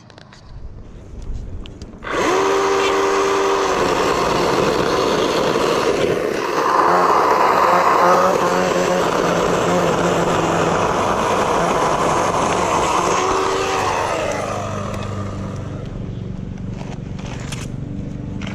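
Ryobi 18V brushless battery chainsaw starting up about two seconds in and cutting through a tree limb, its motor whine rising at the start and then holding steady under load, loudest a few seconds later. It eases off after about fourteen seconds and runs quieter in the last few seconds.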